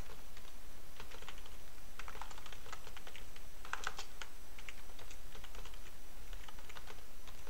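Computer keyboard being typed on, irregular runs of quick keystrokes with short pauses between them.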